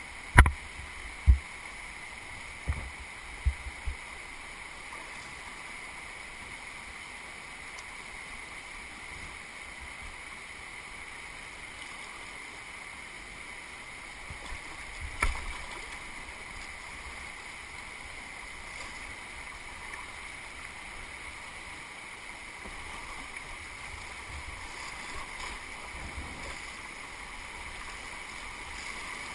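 Steady rush of flood-swollen river water running through rapids, heard from a kayak. A few short low thumps come in the first few seconds and another about halfway through.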